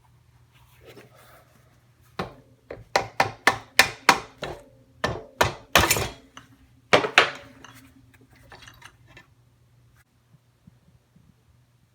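About fifteen quick, sharp hammer taps on a Suzuki RM125 engine's crankcase to split the case halves apart. The taps come in a run over about five seconds, with a short gap before the last two, which are among the loudest. A faint steady hum lies underneath.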